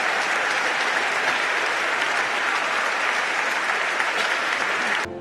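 Congregation applauding: dense, steady clapping that cuts off abruptly near the end.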